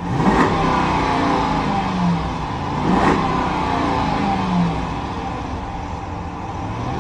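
A 2011 Jeep Grand Cherokee's 5.7-litre HEMI V8 is free-revved in park, heard from the driver's seat. It climbs sharply at the start and again about three seconds in, toward the 3,500–4,000 rpm rev limiter, then falls back and begins to rise again near the end.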